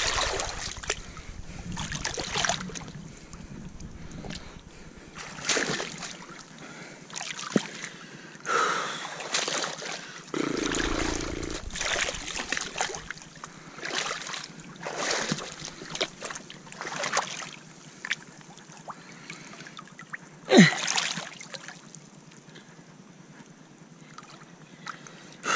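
Hands splashing and sloshing in shallow rock-pool water while turning over stones and kelp, a long series of irregular splashes with the sharpest one about three-quarters of the way through.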